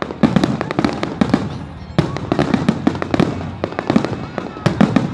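Fireworks display: rapid volleys of bangs and crackling bursts coming in waves about every two seconds, with a faint rising whistle near the end.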